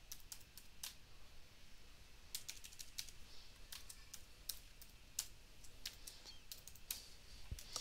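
Faint computer keyboard keystrokes tapped in short, irregular runs as a password is typed.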